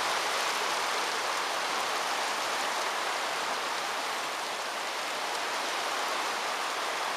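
Heavy driving rain in a storm, a steady unbroken hiss.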